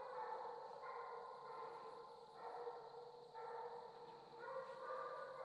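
Distant Redbone coonhounds barking treed, several drawn-out barks of about a second each: the dogs are telling that they have the raccoon up a tree.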